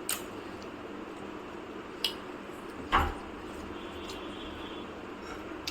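Cutlery and dishes clinking a few times during a meal, with the loudest knock about three seconds in, over a steady low background hum.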